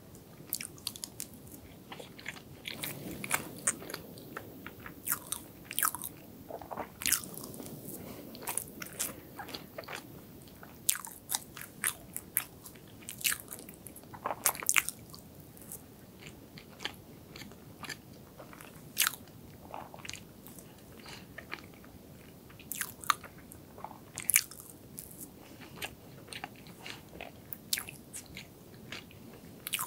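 Close-miked eating sounds: chewing soft chocolate roll cake with cream, with many sharp, irregular clicks and taps as the utensil digs into the cake on the plate.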